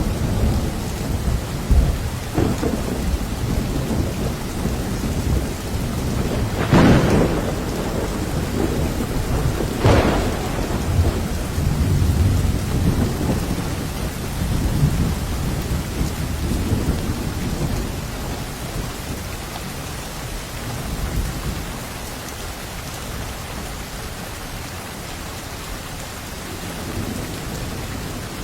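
Steady rain in a thunderstorm, with rolling thunder. Two sharp thunderclaps come about a quarter and a third of the way in, and the rumble dies away over the second half, leaving the rain.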